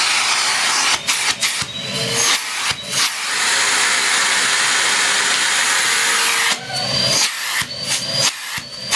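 Numatic Hetty HET200 bagged vacuum cleaner with its 620-watt motor running on the low power setting: a steady rush of motor and air. The sound breaks up briefly about a second in and again near the end.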